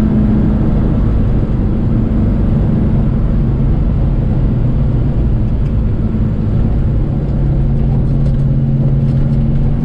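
Holden 308 V8 engine, fitted with a hydraulic roller cam, running steadily at cruise, heard from inside the car's cabin with road and tyre noise. A steady drone carries throughout, and a lower steady tone comes in about seven seconds in as the engine note changes.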